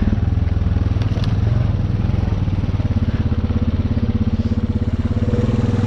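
Honda Rubicon ATV's single-cylinder four-stroke engine running steadily as the four-wheeler rides along, with an even low pulsing exhaust note.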